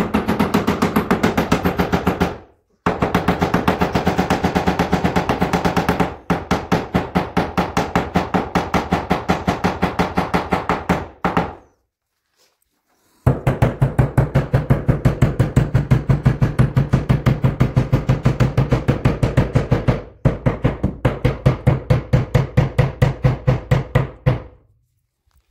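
Hammer driving nails into a wooden panel, played sped up: rapid, even blows about five a second with a ringing tone, in several runs with short breaks and a pause of over a second about halfway.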